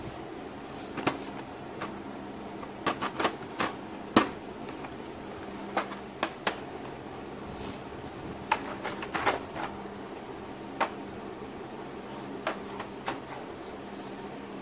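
Plastic blister pack and card backing of a modelling-clay kit being handled and turned over, giving scattered crackles and taps at irregular moments, the sharpest about four seconds in, over a steady background hum.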